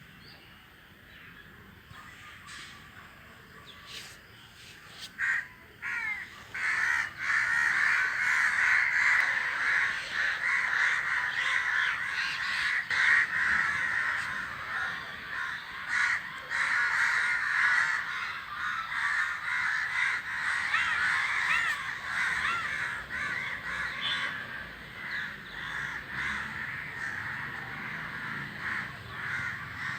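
A flock of crows cawing, many calls overlapping into a dense chorus. The first few seconds are quiet; the chorus builds about five seconds in and slowly thins out over the last third.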